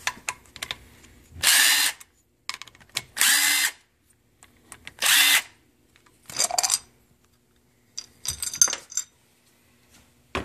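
Power drill-driver with a socket spinning out the crankcase cover bolts of a pressure washer pump: three short runs of the motor, each about half a second, a second or so apart. A shorter run and a few metal clicks and rattles follow as the cover comes loose.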